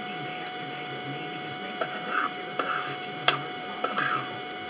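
Steady electrical hum with hiss. From about two seconds in, a handful of sharp clicks and short crunches from eating and handling food at the table.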